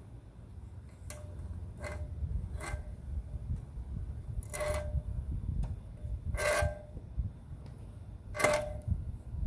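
Hand tools clinking and scraping against a lanai screen frame while old spline is worked out of its channel with needle-nose pliers. There are six short metallic strokes spaced irregularly a second or two apart, each with a brief ring; the last two are the loudest.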